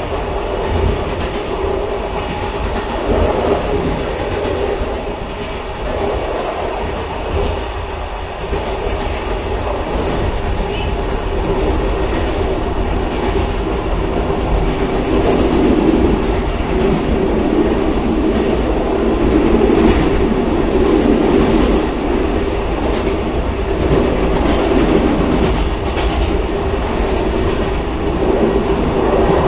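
Railcar running on the track: a continuous heavy rumble with occasional faint clicks, growing somewhat louder about halfway through.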